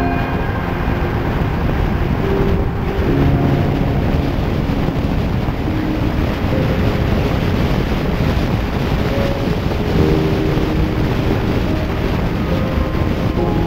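Ford Fiesta ST driving along at a steady speed: a steady rush of road and wind noise, with wind buffeting the microphone.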